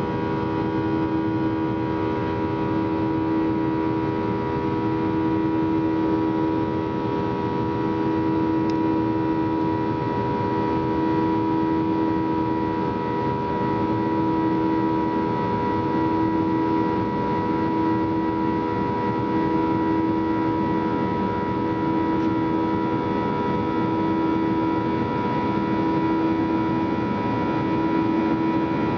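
Cabin noise of a Boeing 737-800 climbing after take-off: the steady drone of its CFM56-7B turbofan engines, with several steady tones over the rush of air. The lowest tone swells and fades about every two seconds.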